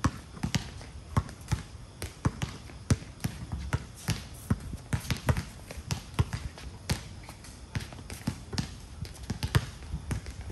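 A basketball dribbled on a hard outdoor court: a quick, uneven run of bounces, two or three a second.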